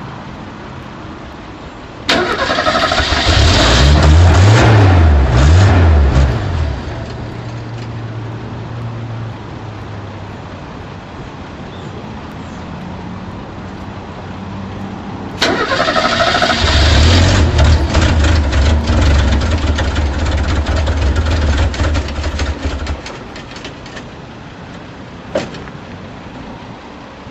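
A flooded car engine being started twice. About 2 seconds in it starts with a sudden loud burst and revs up and down, then settles lower. A second start comes about 15 seconds in, and the engine runs steady and loud for several seconds before dropping away near the end. A single sharp click follows shortly after.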